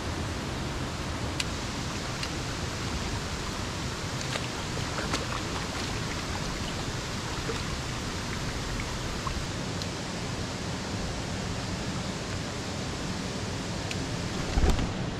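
Steady rushing noise with a few faint ticks scattered through it and a short low thump near the end.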